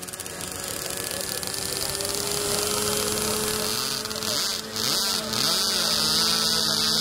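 Electric motor of a scratch-built Depron RC model F-14 jet running steadily in flight, its pitch creeping up slightly.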